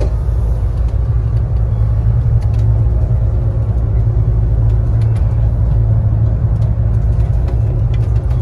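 Fast passenger boat's engines running under way, a steady low drone with no change in speed.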